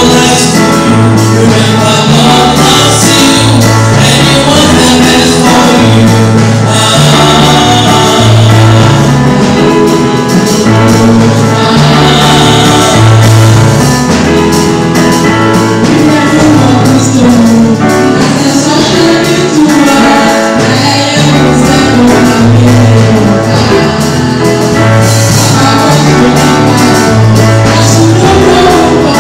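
Loud gospel music with singing, a steady bass line and tambourine.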